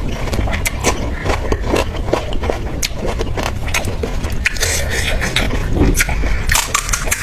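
Close-miked eating sounds: irregular crunching bites and wet chewing, with many sharp crackles.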